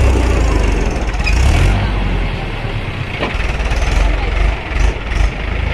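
Heavy diesel engines of earthmoving machinery and trucks running, a loud low rumble that rises and falls as the machines work.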